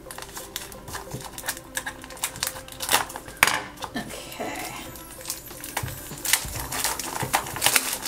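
Clear plastic wrap on a Hatchimals CollEGGtibles egg pack crinkling and crackling as it is snipped with scissors and peeled off by hand: a busy run of small clicks and crackles, the loudest a little past the middle.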